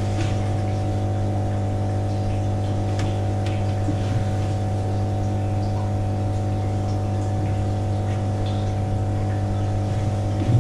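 Steady low mechanical hum, with a few faint light taps.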